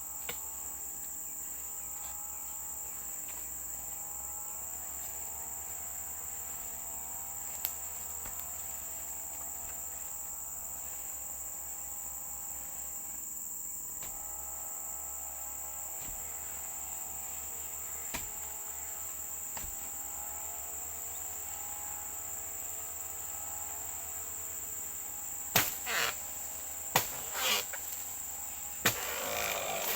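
Steady high-pitched chorus of insects, with a distant engine droning underneath, its pitch wavering, which fits a brush cutter. Several sharp knocks near the end are the loudest sounds.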